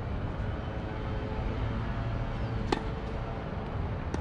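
Tennis ball struck once by a racket a little past halfway through: a single sharp pop with a brief ring, over a steady low background rumble.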